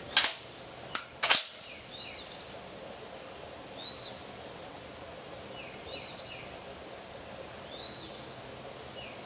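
Three sharp clacks within the first second and a half, the first the loudest. After them a bird calls with short rising-and-falling chirps about every two seconds over a faint steady outdoor background.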